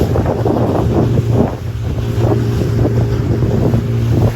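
Motorboat engine running with a steady low drone, under heavy wind buffeting the microphone and water rushing past the hull.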